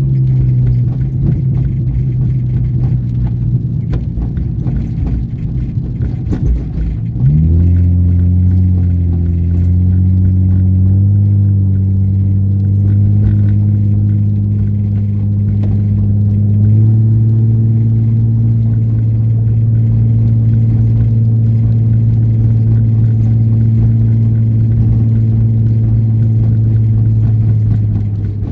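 Nissan 350Z Nismo's 3.5-litre V6 heard from inside the cabin, running at low revs on the move. About seven seconds in the engine note changes abruptly and gets louder, climbs slowly for a few seconds, then holds steady while cruising.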